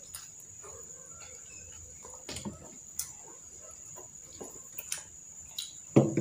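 Eating sounds: forks and fingers clicking and scraping on fried street food and a plastic sauce tub, with chewing, over a steady high-pitched whine. A louder thump near the end.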